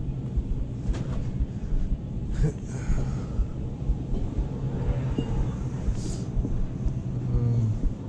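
Low rumble and irregular bumps from a chest-mounted GoPro Hero 6 carried at a walk, over a steady low store hum. A few faint sharp clicks fall about a second in, a couple of seconds later and near six seconds.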